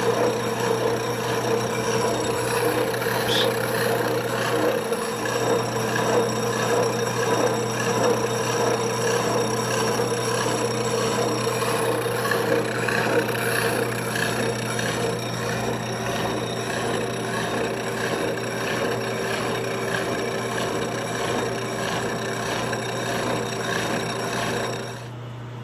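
Horizontal milling machine taking the last pass on a six-spline shaft with two slot cutters ganged on the arbor: a steady motor hum under a rough, grinding cutting noise. Near the end the cutting noise drops away suddenly, leaving a quieter steady hum.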